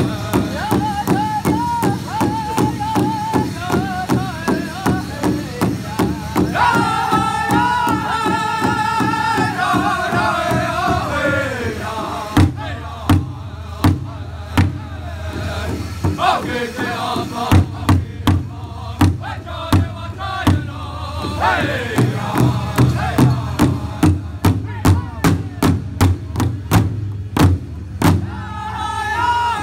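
Powwow drum group singing in high voices over a large hide-covered drum that several drummers beat together with sticks in a steady beat. About twelve seconds in the singing mostly drops away and the drum carries on nearly alone with loud accented strikes, and the singing comes back near the end.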